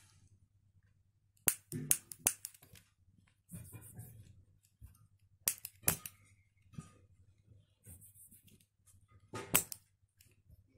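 A piezo igniter taken from a lighter, clicking as it is pressed. There are sharp single clicks in groups: four close together about one and a half to two seconds in, two more near six seconds, and two near nine and a half seconds.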